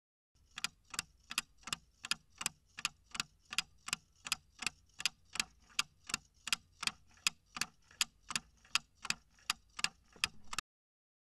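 Ticking-clock sound effect of a quiz countdown timer: a steady run of sharp ticks, about three a second, marking the answer time running out. It starts about half a second in and cuts off abruptly near the end.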